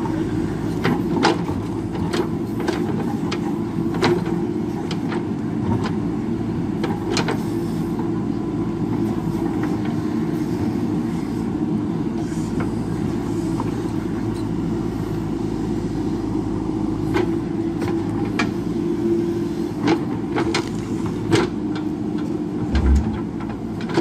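JCB 3DX backhoe loader's diesel engine running steadily under load while the backhoe digs, with many sharp clacks of the steel bucket and stones knocking against rock scattered through it.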